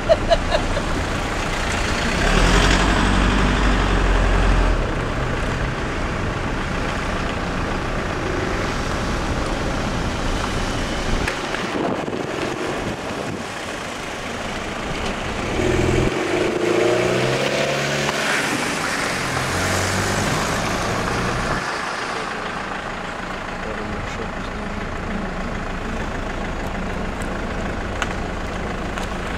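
Diesel engines of demolition machinery and heavy vehicles running. There are a few sharp knocks of breaking debris at the start as an excavator bucket tears into a building, a louder low rumble a couple of seconds in, and an engine rising and falling in pitch around the middle.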